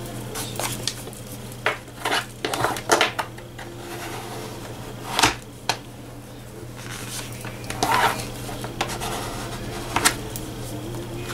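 Craft tools handled on a work board: a paintbrush wiped in a cloth rag and a plastic card pressed and rubbed over a coaster, giving scattered short knocks, clicks and scrapes. A steady low hum runs underneath.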